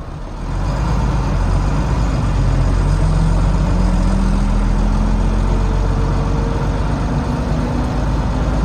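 Volvo B9TL double-decker bus's Volvo D9B six-cylinder diesel pulling away and accelerating, heard from the back seat over the engine. It gets louder about half a second in, and a rising whining note climbs with the acceleration, the odd noise the bus makes each time it accelerates, cause unknown, which the uploader guesses at as gearbox, cooling fan or axle.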